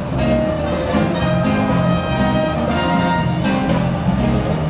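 Music: held melody notes over a moving low bass line, at an even level.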